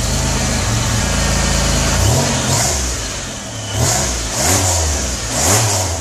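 Supercharged GM 3800 V6 engine in a Pontiac Fiero, running at a steady idle, then revved in several short throttle blips from about two seconds in.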